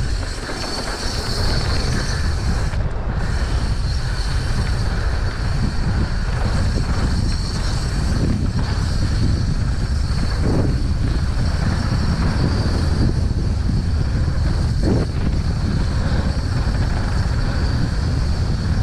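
Mountain bike riding down a trail: steady wind buffeting the microphone over a low rumble from the bike rolling on rough ground.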